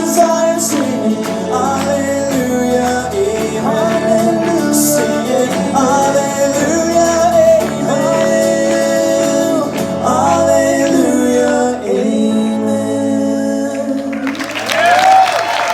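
Live worship band and singers, male and female voices over guitar, singing sustained final lines of a gospel song. Applause breaks out near the end as the song finishes.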